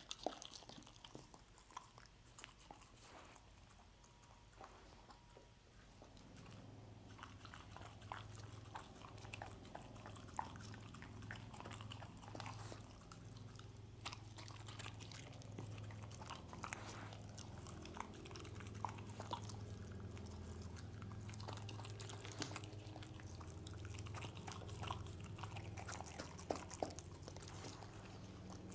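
A dog eating scrambled egg off a wooden board: wet chewing, smacking and licking clicks, sparse at first and more frequent after about six seconds, when a low steady hum also comes in underneath.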